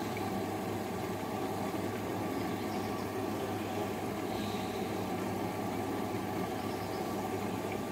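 Front-loading washing machine running steadily early in an intensive 60° wash, with a low, even hum over a soft rushing noise as its drum of wet white laundry takes on water.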